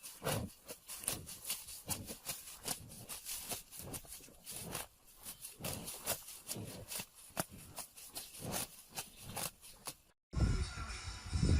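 An irregular run of sharp clicks and taps, several a second, that cuts off abruptly about ten seconds in.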